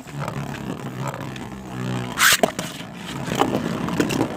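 Two Beyblade spinning tops, one of them 3D printed, whirring as they spin in the stadium. About two seconds in they collide with one loud clack, followed by a few lighter clicks.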